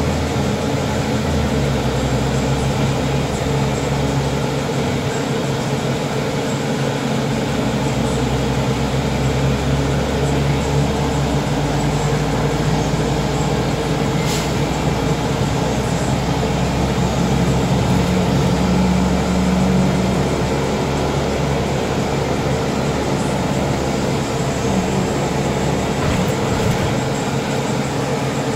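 Credo BN 12 city bus driving along a street, heard from inside the cabin: a steady low engine drone with road and rolling noise, the engine note stepping up and down a few times. A brief click about fourteen seconds in.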